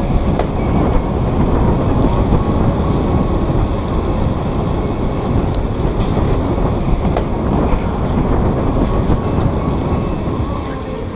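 Wind buffeting the microphone: a steady, loud rumble with a few faint clicks.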